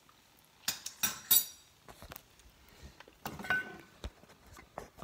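Kitchen dishes clinking: a few sharp clinks with a high ring about a second in, then a plate clattering down on the stone counter with a short ring at about three and a half seconds, followed by light taps.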